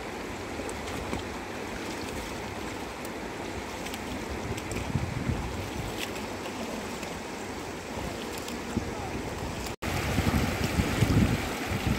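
Steady rush of fast-flowing river water over rocks and shallow rapids. After a brief break about ten seconds in, gusts of wind buffet the microphone.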